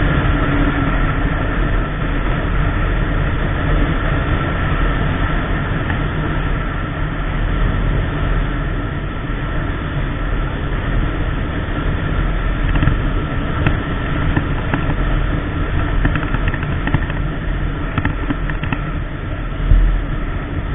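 KTM Duke 390's single-cylinder engine running steadily at cruising speed, mixed with heavy wind rush over the microphone.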